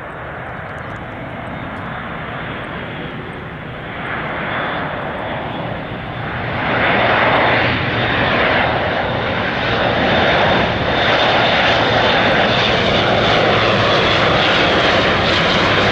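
Airbus A400M Atlas military transport on final approach, its four turboprop engines with eight-bladed propellers running steadily. The sound grows louder in two steps, about four and about seven seconds in, as the aircraft closes in, then holds loud with a thin high whine over it.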